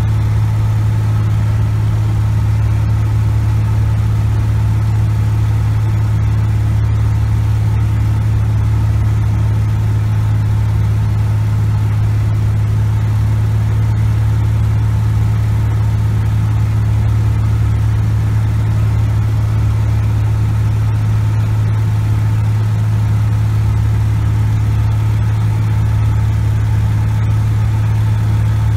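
Cessna 180 Skywagon's Continental O-470 six-cylinder engine and propeller running at a constant power setting in flight, a loud, steady low drone heard from inside the cockpit.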